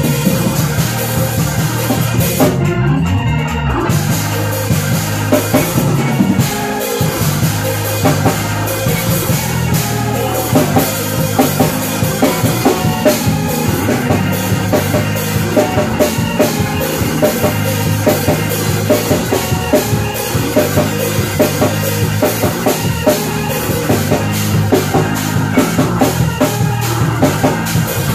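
Live church band jamming: organ with drum kit and bass, the drums playing busily throughout. The cymbals and high end drop out briefly about three seconds in.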